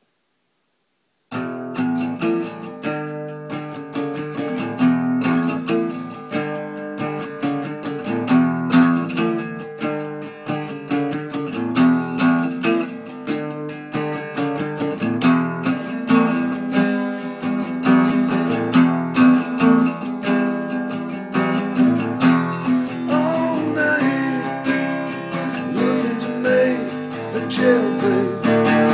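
Strummed acoustic guitar playing a steady rhythm, coming in about a second in after silence.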